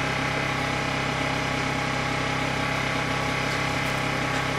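A motor running steadily: a constant, unchanging hum with several fixed tones.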